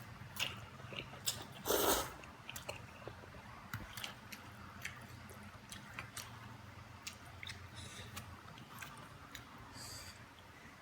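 Close-miked chewing and mouth smacking of a person eating soupy instant noodles (Indomie kuah) with rice. There are many small wet clicks throughout and one louder, longer burst about two seconds in.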